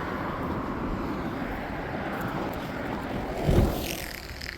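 Road traffic passing close by, a steady rushing noise that fades near the end, with a short low thump about three and a half seconds in.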